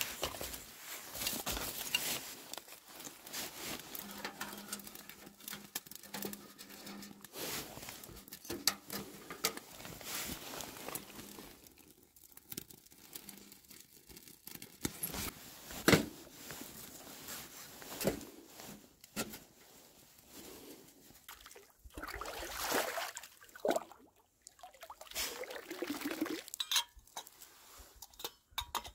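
Kindling fire crackling in a small Winnerwell wood stove, with scattered clicks and knocks of split sticks being handled and pushed in through the stove door. Near the end, water sloshes as a small kettle is dipped to be filled.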